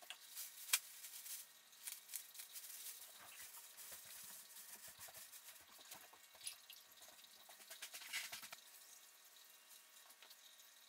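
Faint scattered clicks, rustles and drips as a plastic trash bag and a clear plastic cup are handled over a small aquarium, with one sharper click about a second in.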